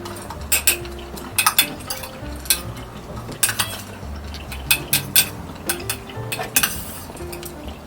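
Kitten purring, a faint low rumble that comes and goes about once a second with its breathing, under many irregular sharp clicks and clinks, which are the loudest sounds.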